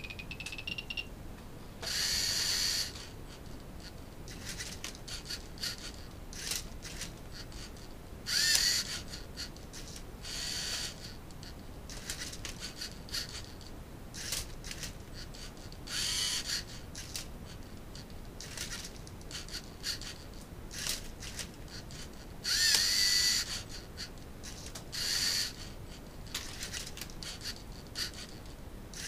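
LEGO Mindstorms NXT robot's servo motors and plastic gears whirring in short bursts of about a second, six times, as its arms turn and flip a Rubik's cube, with plastic clicks and clatter between the bursts.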